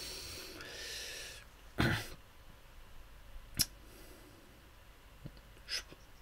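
Faint mouth and breath noises at a close microphone: a short throat noise about two seconds in, a sharp click a little later, and a brief breath near the end.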